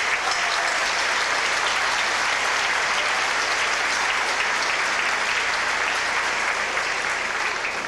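Audience applauding steadily, starting to die away near the end.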